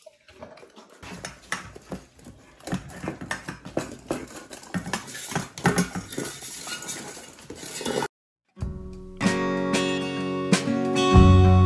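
An English Mastiff puppy and another dog eating from stainless steel bowls on the floor: rapid, irregular clinking and scraping of the metal bowls as they eat. About eight seconds in this cuts off, and guitar music starts.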